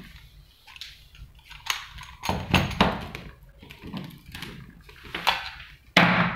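Cordless drill bodies being handled and set down on a tabletop: a string of irregular knocks and clatters, with the loudest knock about six seconds in.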